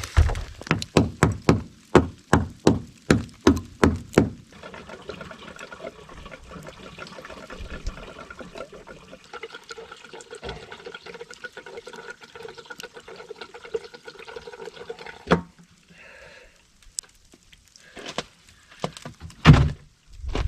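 About ten quick, evenly spaced knocks over the first four seconds, then diesel fuel pouring steadily into a diesel heater's fuel tank for about ten seconds, ending with a sharp knock. A few clunks and one loud thump follow near the end.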